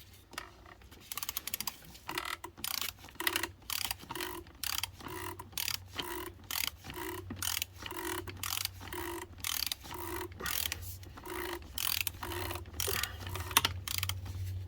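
Ratchet of a torque wrench clicking in quick clusters through repeated short back-and-forth strokes, about one and a half strokes a second, as it tightens an oil filter housing cap.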